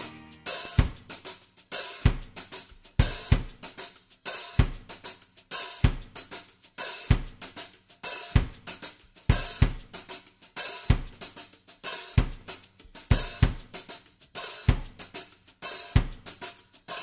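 Background music with a drum-kit beat alone: kick drum about once a second, with hi-hat and cymbal strokes between.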